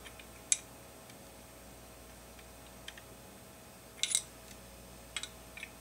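A few small, sharp metal clicks and taps from a hex driver being set onto the front night sight's hex-head screw on a Glock 19 slide. The loudest click comes about half a second in, and a short cluster follows around four seconds in.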